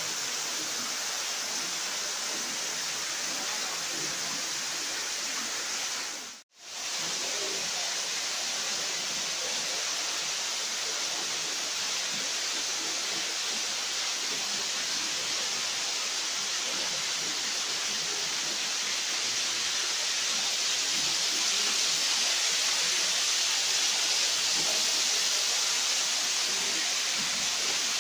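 Waterfall and river water rushing steadily, cut out briefly about six seconds in and getting a little louder in the last third.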